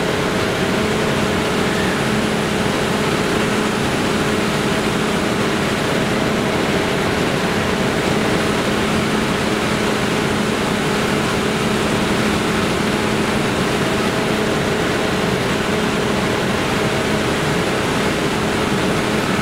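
Kiddie car ride's machinery running steadily as the platform turns: a constant hum with a rushing noise, unchanging in pitch and level.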